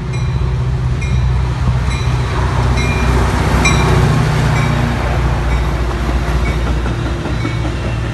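Metra commuter train passing close by: the diesel locomotive's steady engine drone, loudest as it goes by about three to four seconds in, then the bi-level coaches rolling past with wheels clicking over the rails.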